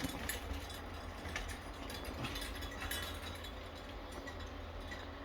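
Quiet room tone: a steady low hum with a few faint, soft ticks.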